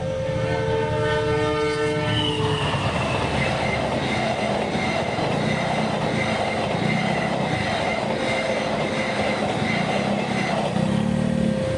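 A train's horn sounding a chord for the first couple of seconds, then the train rushing through the level crossing at speed, wheels and carriages rumbling by. Near the end the crossing's steady warning tone is heard again.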